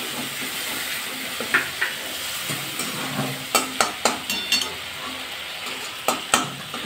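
Spices sizzling in hot mustard oil in a metal kadai while a flat metal spatula stirs and scrapes them. Several sharp clicks of the spatula striking the pan come in short pairs.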